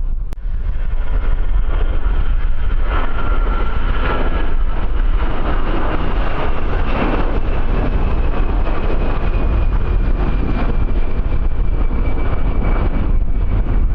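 Aircraft engines whining as a plane passes, the high whine slowly falling in pitch, under heavy wind buffeting on the microphone.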